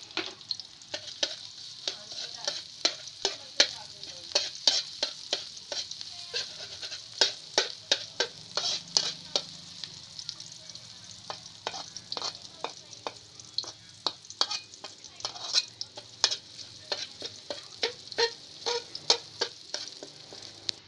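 Chopped garlic sizzling steadily in hot oil in a metal wok, while a metal spatula stirs it with frequent, irregular scrapes and clinks against the pan, several a second.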